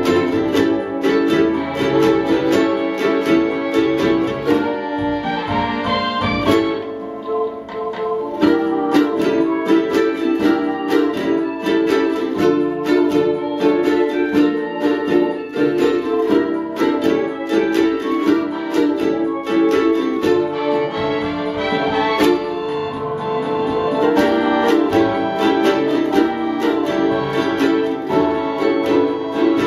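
Ensemble of six ukuleles playing a tune together, strummed and plucked in a steady rhythm, dipping briefly softer about seven seconds in.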